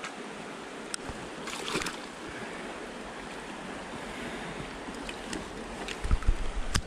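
Shallow river rushing over rocks, a steady hiss of flowing water, with a few light clicks and, near the end, a short run of low thumps as the trout is brought into the landing net.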